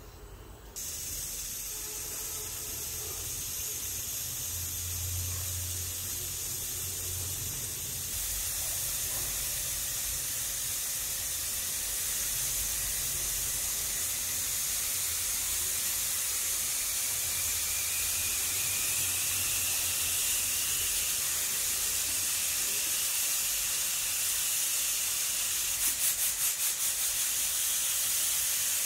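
Aluminium stovetop pressure cooker hissing steam at its weight valve as the pressure builds. The hiss starts suddenly about a second in and slowly grows louder, with a brief rapid fluttering near the end.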